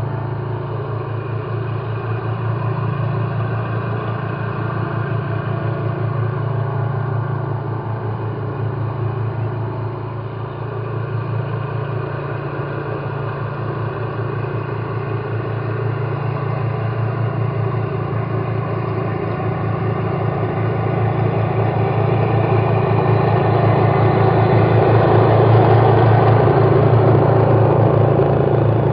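Loud, steady low mechanical drone with a fast pulse, like an engine or rotor, swelling louder in the last third before easing slightly near the end. The uploader suspects it is a helicopter.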